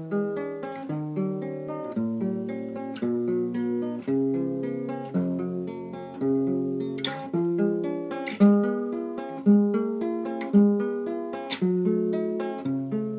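Solo acoustic guitar playing a slow chord progression, a chord struck about once a second and left to ring before the next.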